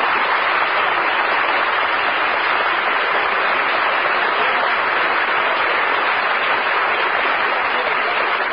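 Studio audience applauding steadily, heard through a 1950 radio transcription recording with its limited treble.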